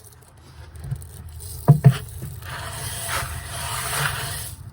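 Handling noise of a phone on a stick being lowered into a plastic food-grade barrel: two sharp knocks just under two seconds in, then a longer scraping rustle as it rubs inside the barrel.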